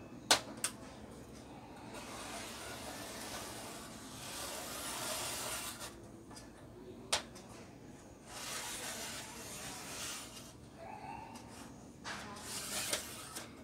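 Felt-tip marker rubbing across the sheet-metal back case of a TV as lines are drawn, in three scratchy strokes of a second or more each, with a few sharp clicks on the metal, the loudest just after the start.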